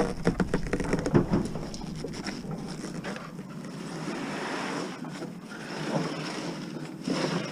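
Wind rushing on the microphone, with several knocks and clunks in the first second or so as a heavy refrigerator is manhandled.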